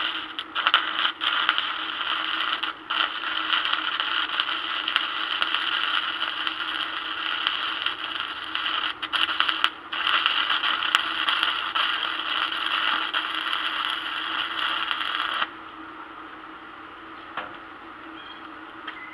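Electric arc welding: the arc's steady crackle and sizzle, broken by a couple of brief pauses, stopping about fifteen seconds in. A low steady hum continues underneath.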